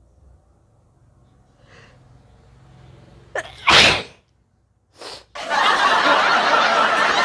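A person sneezing once, hard, about three and a half seconds in, right after a quick sharp intake of breath: a sneeze set off by a nasal swab. After a short silence comes another brief burst, then a loud, steady noisy stretch that carries on.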